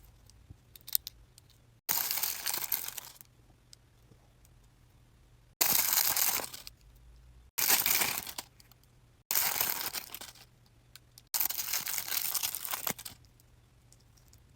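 Small toy-packaging wrappers crinkling and tearing as accessory packets are opened by hand, in five separate bursts of about a second each, several starting or stopping abruptly.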